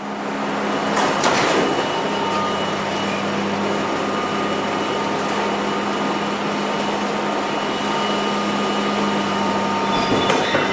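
Interior of a Budd-built R32 subway car: steady rumbling car noise with a constant low hum and a few steady higher tones. Sharp clicks come about a second in and again near the end.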